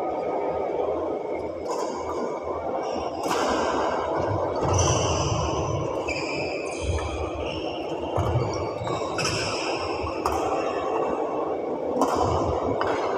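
Badminton rackets striking a shuttlecock: sharp hits a second or two apart, with short high squeaks of shoes on the court floor, ringing in a large echoing sports hall over a steady background hum.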